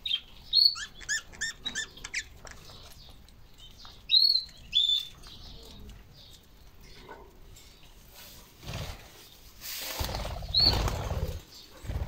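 Budgerigars chirping: a quick run of short chirps in the first two seconds, two loud chirps about four seconds in, and another near the end. A burst of rustling noise comes in the last few seconds.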